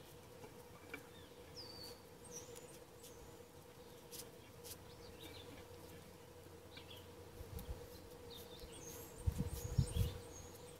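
Quiet outdoor ambience with small birds chirping now and then, over a faint steady hum. Soft clicks and rustles of paracord handled by the fingers, with a few low bumps near the end.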